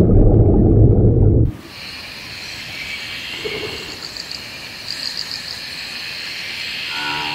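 Loud, muffled underwater rumble that cuts off suddenly about one and a half seconds in. It gives way to quiet lakeside ambience with a steady high insect chirring that pulses now and then. A few held music notes come in near the end.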